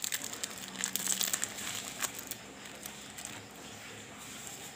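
Plastic packet of Pelet Jitu bait pellets crinkling as it is handled, a quick run of small crackles over the first two seconds or so that then dies down.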